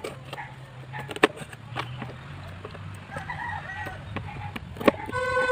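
Knife chopping chicken wings on a cutting board, a few sharp knocks, with backyard chickens calling in the background and one held crowing note near the end.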